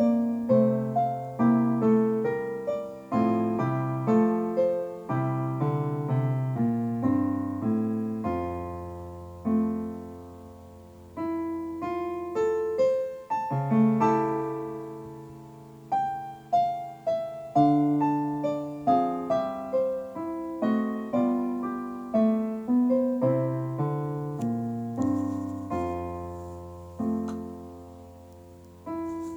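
Solo piano background music: a slow melody of struck notes, each ringing and fading.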